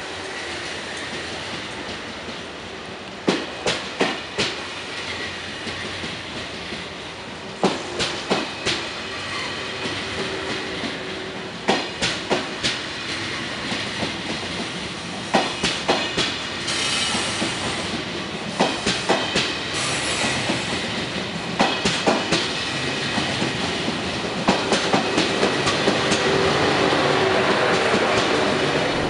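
TGV Réseau high-speed trainset rolling slowly past. Its wheels give a clickety-clack in bursts every few seconds as each bogie goes by, the bursts coming closer together as the train picks up speed. A steady hum grows louder near the end as the power car comes alongside.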